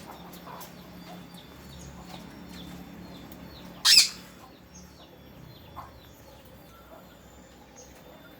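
Pet sun conures and lovebirds chirping with many short, high tweets, and one loud, harsh squawk about four seconds in.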